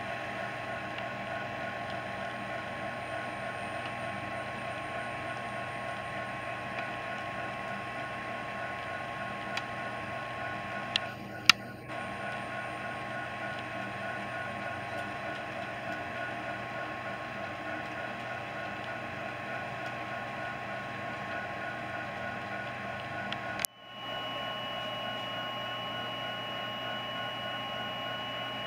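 Model trains running on a layout: a steady electric motor hum and wheel rumble on the track, with a few steady tones, one pulsing evenly. Two sharp clicks come about 11 seconds in, and the sound briefly cuts out about 24 seconds in.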